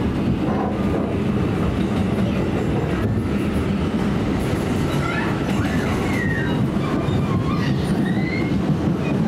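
An R179 New York City subway car running at speed, heard from inside the car: a steady rumble of wheels on rails. In the second half come a few brief high squeals from the wheels.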